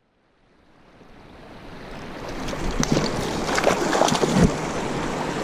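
Flowing stream water with wind on the microphone, fading in from silence over the first couple of seconds, with a few small knocks and splashes about three to four seconds in.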